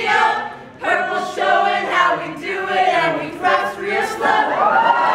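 A large group of voices singing a team cheer together in unison, with a short break under a second in; near the end the singing breaks up into overlapping shouts.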